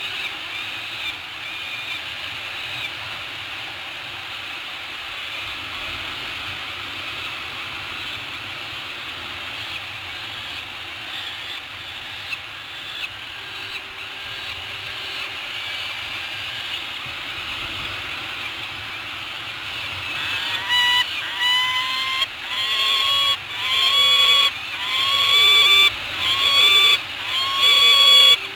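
Birds at a seabird-cliff nest ledge: a steady high chatter of distant calls, then from about two-thirds of the way in, a loud run of repeated calls, about one a second, each rising slightly at the start and then held.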